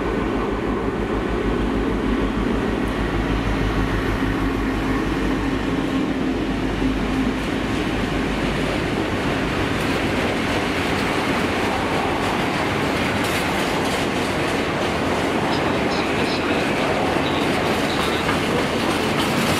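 Diesel freight locomotive running past with a steady low engine note, then a long train of open freight wagons rumbling and clattering over the rail joints.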